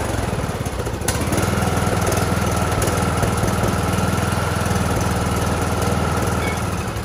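John Deere D105 lawn tractor's Briggs & Stratton engine running steadily just after starting, run briefly after an oil and filter change so the new filter fills with oil. It is shut off near the end.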